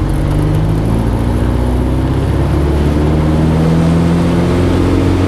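Vans RV-7's piston engine and propeller at full power on the takeoff roll, heard from inside the cockpit. A loud, steady drone whose pitch climbs slowly as the aircraft gathers speed.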